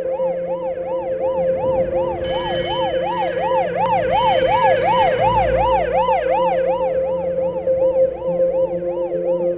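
Emergency vehicle siren wailing in a fast yelp, its pitch sweeping up and down about three times a second, over a steady lower tone. A second steady, higher tone joins for a few seconds in the middle.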